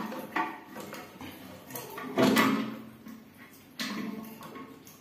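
Hands working the plastic fill valve inside a ceramic toilet cistern: a few sudden clunks and rattles, the loudest about two seconds in and another near the end.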